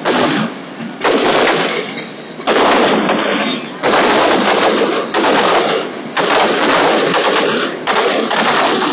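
Aerial fireworks shells bursting in rapid succession: about ten sharp bangs, roughly one a second, each trailed by dense crackling. A faint falling whistle comes about a second in.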